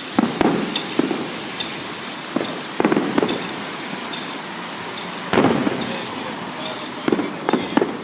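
Fireworks going off: irregular sharp bangs and pops, loudest about three and five seconds in, over a continuous crackling hiss.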